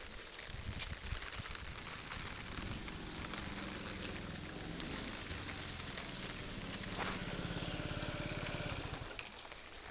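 Steady rain falling on a wet road. A motor scooter pulls up with its engine running from about three seconds in, and the engine stops near the end.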